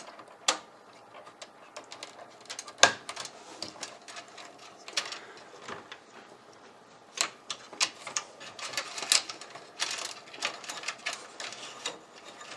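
Irregular small plastic clicks, taps and rattles of hands handling cables and connectors inside a computer case, the loudest near 3, 7 and 9 seconds in.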